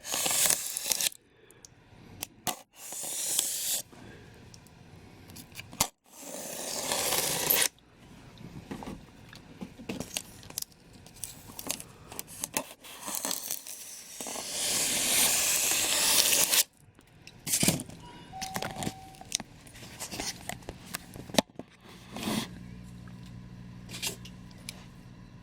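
Cardboard box being cut open with a knife: several long tearing rasps through tape and cardboard, with knocks and scrapes of handling in between.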